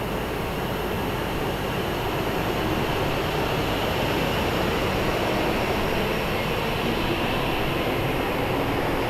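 E5 series Shinkansen train running, a steady rushing noise that grows gradually louder.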